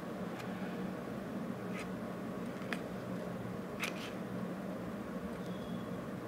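Old scissors, freshly sharpened on sandpaper, snipping through cloth as a test cut: four short, faint clicks of the blades closing, over a steady low hum.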